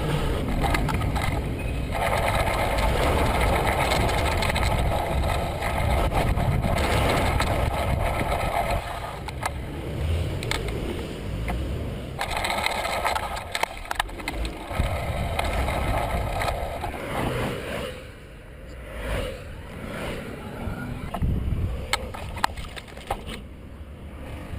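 Wind rushing over a handlebar-mounted camera and road noise from a moving bicycle, with many short rattling clicks and knocks; it gets quieter for the last several seconds.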